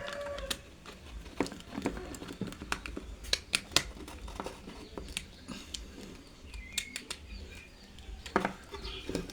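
Scattered light clicks and taps of hands working an electrical cable into a one-gang two-way switch's common terminal, over a low steady hum.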